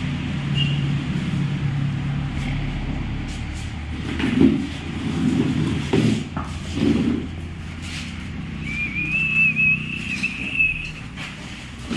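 Steady low mechanical hum of workshop or vehicle noise, with a few knocks and clatters in the middle as the removed motorcycle front wheel and tools are handled on the tile floor. A high, wavering whistle-like tone near the end.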